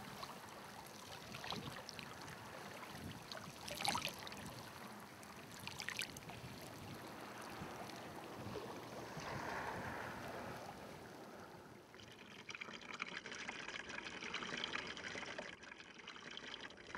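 Faint trickling, lapping water with a few small knocks; the sound changes about twelve seconds in.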